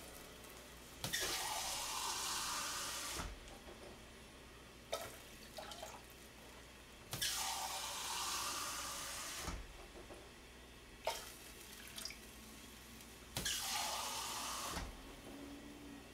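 Kitchen sink faucet running three times, each run about one and a half to two seconds long, as a container is filled with water for the stockpot. Short knocks come between the runs.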